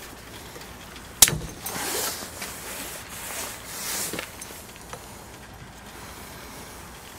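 Steel pliers clicking and scraping against a cotter pin as its legs are bent over the threaded shank of a trailer hitch ball. One sharp metallic click about a second in, then several softer scrapes and a few small ticks.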